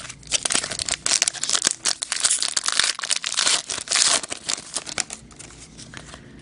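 Foil wrapper of an Upper Deck hockey card pack being torn open and crinkled by hand: a dense crackle that runs for about five seconds and dies away about a second before the end.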